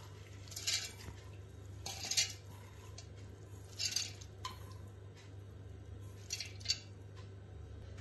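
Soaked urad dal being tipped and scraped by hand from a steel bowl into a stainless steel mixer-grinder jar: about four short, brushing clatters of wet lentils sliding against the metal, over a faint steady low hum.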